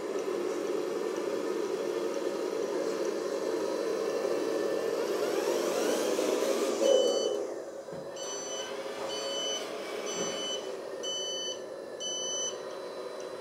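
Radio-controlled IVECO 4x4 dump truck driving: its electric motor and gear drivetrain whir steadily, rising in pitch to a peak about seven seconds in. Then its sound module sounds short reversing beeps, about one a second, as the truck backs up with its reversing lights on.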